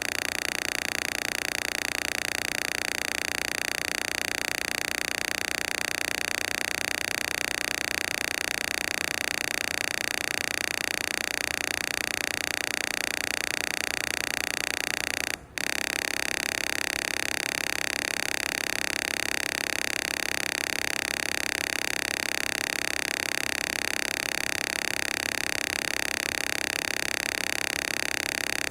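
Synthesized frequency-therapy tones: a steady electronic sound of many held pitches over a bright, hiss-like band. About halfway through it cuts out for a split second, then resumes with a slightly changed set of lower tones.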